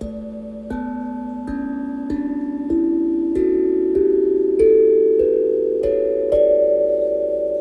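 A run of struck, bell-like ringing notes, one about every 0.6 s, each climbing a step higher in pitch and ringing on under the next.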